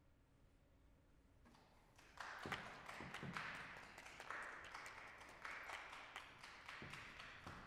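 Near silence at first, then about a second and a half in scattered applause from a small audience begins and grows louder, the individual claps distinct rather than blending into a dense roar.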